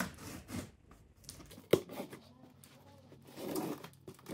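Utility knife slitting the packing tape along a cardboard box's seam: faint scraping cuts, with a sharp click just under two seconds in.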